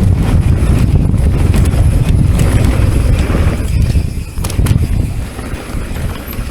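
Wind buffeting a camera microphone during a fast mountain-bike descent: a heavy low rush, with sharp knocks from the bike rattling over rough trail. The rush eases a little about four seconds in.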